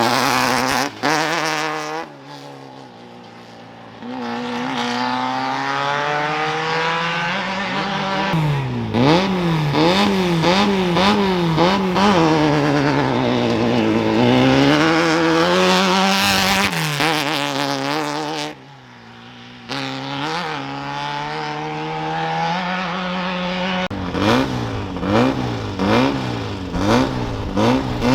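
Off-road race vehicles' engines revving hard and accelerating away from the start line, their pitch climbing and dropping again and again through gear changes and throttle. There are two short lulls, and near the end come a string of quick throttle blips.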